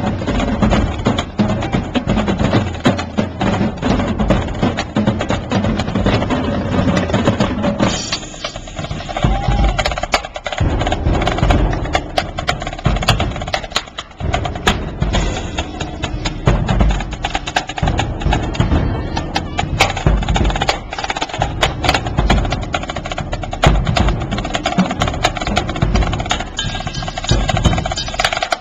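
A marching drum line of snare drums, bass drums and cymbals playing a fast cadence. About eight seconds in, the dense snare rolls give way to a sparser groove led by deep bass-drum hits.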